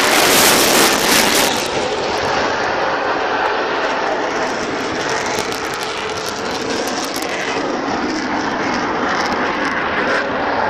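Jet noise from a Eurofighter Typhoon's twin turbofans during a flying display: loudest and hissiest for about the first second and a half, then a steady, slightly quieter roar.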